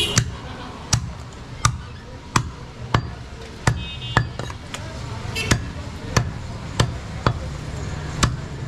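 A heavy butcher's knife chopping through goat ribs on a wooden chopping block: sharp knocks at a steady pace, about a dozen strokes, roughly one every two-thirds of a second.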